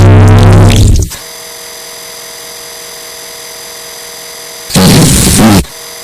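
Loud, heavily distorted electronic sound effects: a blaring pitched blast that cuts off about a second in, a steady buzzing hum with several fixed tones, then a second loud blast near the end whose pitch falls.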